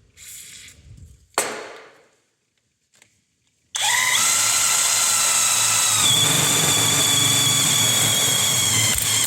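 Cordless impact wrench spinning an HMT hole-cutting bit into steel plate. It starts about four seconds in and runs steadily with a whine, dipping slightly in pitch about two seconds later. Before it, a single sharp knock with a short ring, about a second and a half in.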